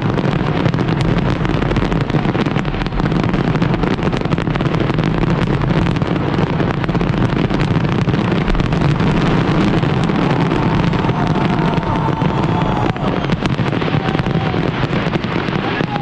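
New Year fireworks display: a dense, unbroken run of bangs and crackles.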